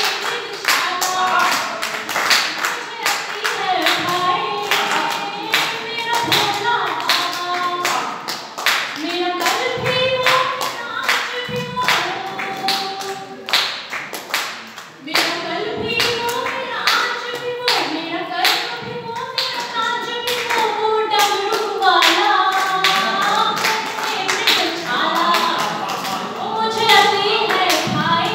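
A voice singing a verse to a melodic tune while the audience claps along in steady time, about two claps a second.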